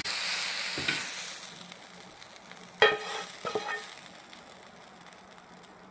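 Sizzle of a hot pan of fried chicken dying away after the flame is turned off, while a metal spatula scrapes the chicken out onto a plate. A sharp clank of the spatula about three seconds in is the loudest sound, with a few lighter knocks after it.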